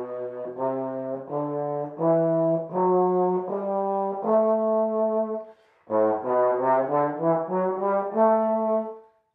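Tenor trombone playing an A Dorian scale (F sharp in place of F natural), rising one octave from low A, slowly one note at a time. After a short breath about halfway through, it plays the same rising octave again more quickly.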